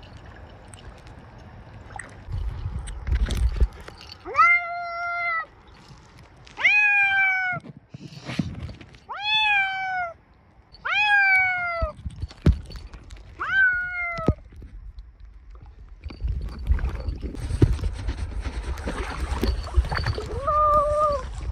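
A cat meows five times, each meow about a second long and rising then falling slightly, roughly every two and a half seconds. Then comes a stretch of splashing water, with one more short meow near the end.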